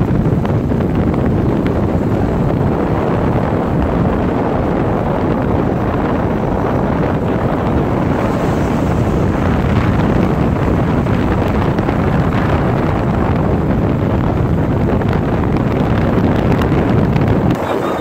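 Wind buffeting the microphone at road speed over a steady mix of motorcycle engine and tyre noise, easing slightly near the end.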